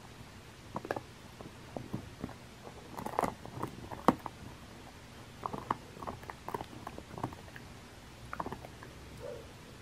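Basset hound gnawing on a chew, its teeth making irregular crunches and clicks, with the loudest cluster a few seconds in.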